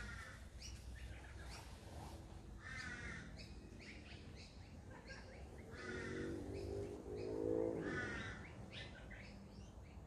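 Birds giving harsh, bark-like caws over and over, roughly one a second. From about six to eight seconds in, a lower drawn-out call is the loudest sound; it falls in pitch as it ends.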